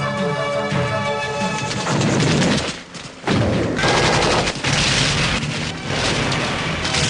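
Film-score music, then a cut to battle sound effects from a war film: rapid gunfire and explosions from about three seconds in.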